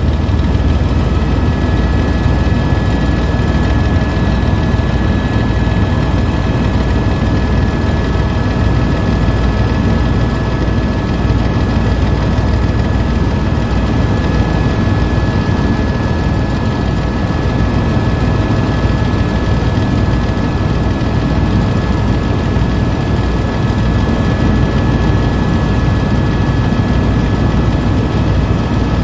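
Helicopter running in steady cruise, heard from inside the cabin: a constant low rumble of rotor and engine with a steady high whine over it.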